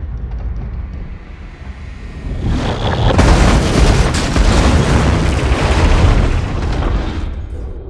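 Film sound effects of a bullet train derailing: a low rumble, then from about two and a half seconds in a long, loud crash and boom as the train smashes through buildings, lasting about five seconds before easing off.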